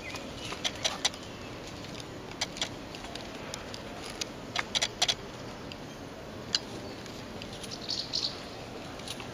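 Garden ambience: a steady low hiss with scattered sharp clicks and a few short bird chirps, the chirps clustered about eight seconds in.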